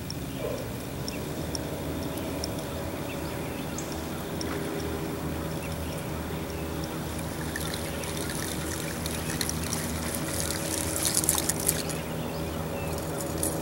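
Water trickling and splashing around a small aluminium fishing boat over a steady low hum, with a louder spell of splashing near the end.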